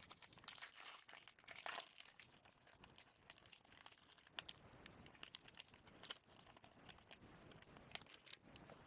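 Faint crinkling and rustling of a trading-card pack wrapper being opened, with the light clicks of cards being handled, a little louder in the first two seconds.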